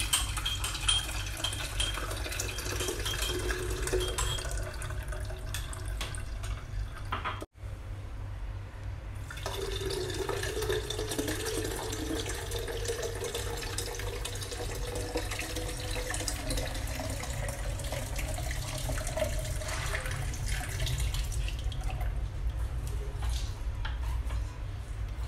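Blended lemon juice poured from a blender jug through a fine mesh sieve into a glass pitcher: a steady stream of liquid splashing and trickling, with a brief gap about seven seconds in.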